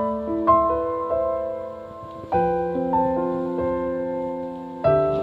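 Slow, gentle piano music, with a chord struck about every two and a half seconds and single notes between, each note fading away.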